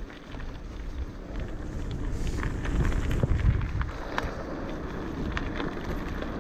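Wind rumbling on the microphone during a bicycle ride, with scattered light clicks and rattles from the bike.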